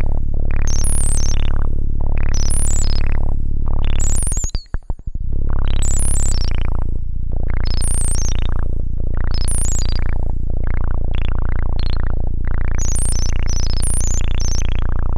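Buzzy synthesizer tone played through a breadboarded Moog-style transistor ladder filter. The filter's cutoff sweeps open and shut again and again, so the tone swells bright and falls back to a dull bass roughly once a second, faster near the end. About four seconds in, the sound cuts out and stutters for a second, and soon after the bass note changes pitch.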